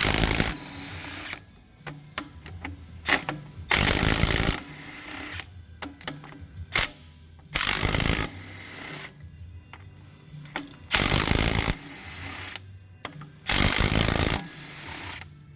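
DeWalt DCF921 compact cordless impact wrench hammering in about five short bursts on Cummins crankshaft bolts, breaking them loose one after another. Between the bursts come sharp metal clicks and clatter of the socket and bolts.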